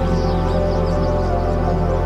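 Background music of sustained, steady tones, even in level throughout.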